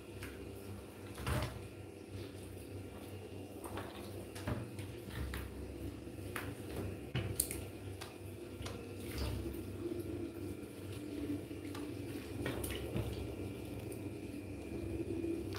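Light splashing and sloshing of water in a plastic dipper as a baby monkey is washed in it, with scattered small taps and clicks, the sharpest about seven seconds in.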